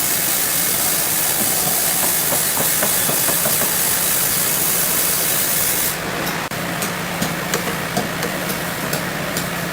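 Sawmill saw cutting through a hardwood log, a loud, steady hiss that cuts off suddenly about six seconds in. It leaves a steady machine hum with scattered sharp clicks.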